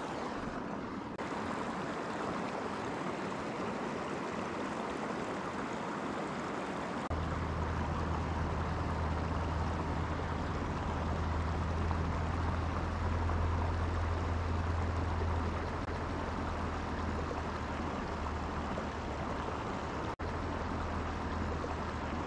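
Steady rushing outdoor noise, with a low hum that comes in about seven seconds in and holds; a brief dropout near the end.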